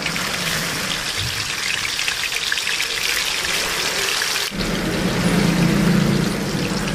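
Pieces of spice-boiled tempeh deep-frying in hot oil in a wok: a steady crackling sizzle. About halfway through, a low hum joins under the sizzle.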